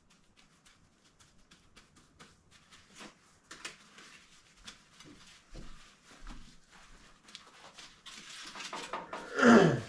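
Paper towels crinkling and rustling in short faint crackles as they are pressed onto greasy cooked bacon to blot it. Near the end comes a brief, loud voice-like call that falls steeply in pitch.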